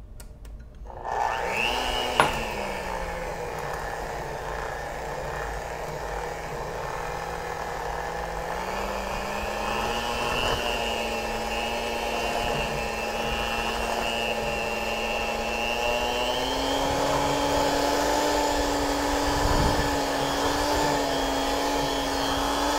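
Electric hand mixer starting about a second in and beating cookie batter, its motor whine stepping up in speed twice, about a third and about two thirds of the way through.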